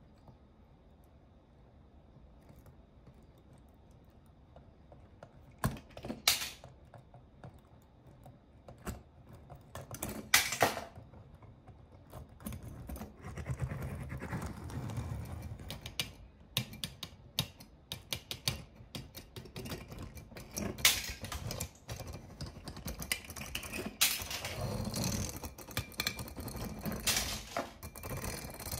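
Small die-cast toy cars clicking and clattering as they come up through a plastic hatch and roll out across a hard floor, knocking against other toy cars. A few sharp clicks come about six and ten seconds in, then busier clatter mixed with a low rolling rumble of small wheels.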